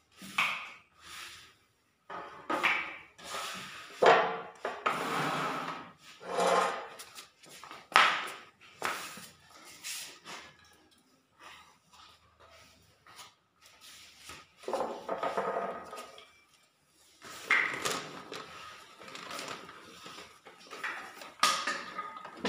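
Steel putty knife scraping and spreading skim coat across a wall in irregular strokes, with a pause of a few seconds about halfway through.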